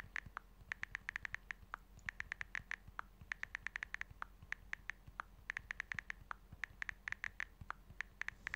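Keyboard typing sound effect: runs of quick, light key clicks with short breaks between them, as text is typed out.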